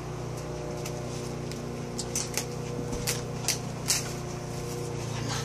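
Short rustles and ticks of a plastic stencil sheet and notebook pages being handled, clustered in the middle, over a steady low hum.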